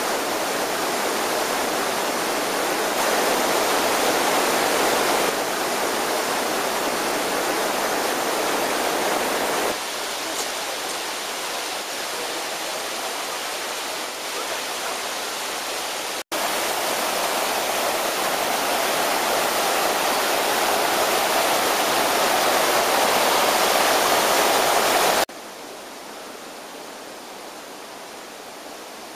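Rushing water from travertine waterfalls and cascades: a steady roar of falling water, broken by several abrupt jumps in loudness. Near the end it drops to a softer, more distant rush.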